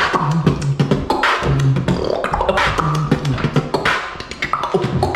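Beatboxing: a fast rhythm of vocal drum clicks and snare sounds with short hummed bass notes.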